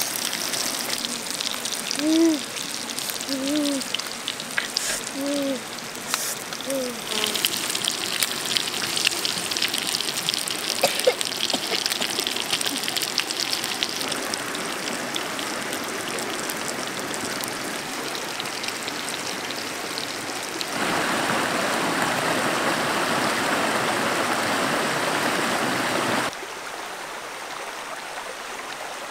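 A large fish sizzling and crackling on a clay pot shard over a wood fire, with a few short voiced sounds from a person in the first seconds. Near the end a steady rushing gives way to the quieter flow of a shallow stream.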